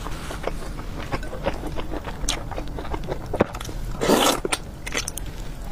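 Close-miked eating: a person chewing and biting, with many short wet clicks and a longer noisy burst about four seconds in.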